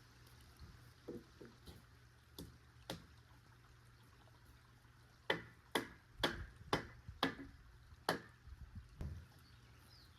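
A run of about six sharp knocks, roughly two a second, starting about halfway through, after a few fainter knocks earlier. A low steady hum lies underneath.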